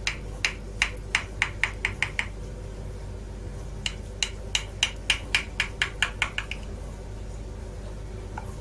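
Metal knife cutting through a tray of halawet el jibn, its blade clicking against the bottom of the glass baking dish. The clicks come in two quick runs of about four a second, with a pause of a second and a half between them.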